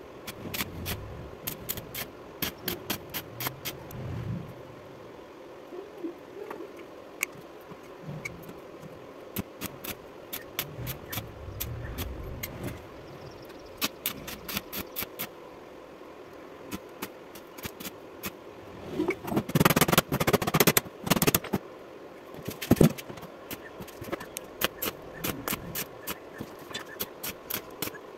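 Stick arc welding on a wheelbarrow's steel frame with a small inverter welder: the arc crackles and spits in short spells of sharp clicks, with a longer, louder run of crackling about two-thirds of the way through. A faint steady hum lies under it.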